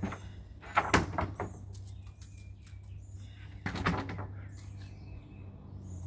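Wooden boards knocking and clattering as lumber is shifted in a stack: a cluster of sharp knocks about a second in and another near four seconds, over a steady low hum.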